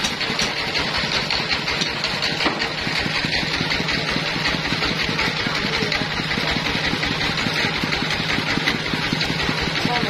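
Band sawmill's engine running steadily, holding an even pitch with a continuous mechanical rattle.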